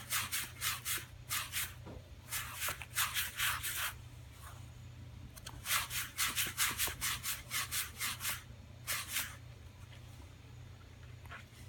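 A sneezing fit: runs of quick, breathy nasal bursts, four or five a second. There are two bouts of several seconds each and a short one of two bursts a little after the middle.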